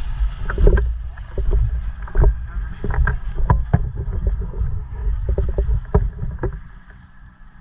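Heavy low rumble of wind and movement on the microphone, with irregular sharp clicks and snaps scattered through it, dying down near the end.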